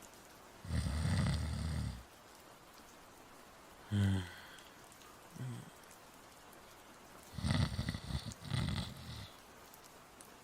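A person snoring in an acted, voice-performed way: two long rough snores, about a second in and again near the end, with short low grunting breaths between them. A steady rain sound runs underneath.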